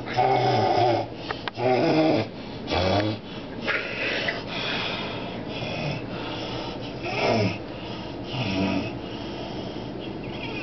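A man snoring very loudly: irregular rough, wheezing snores, the loudest in the first three seconds, then softer ones every second or two.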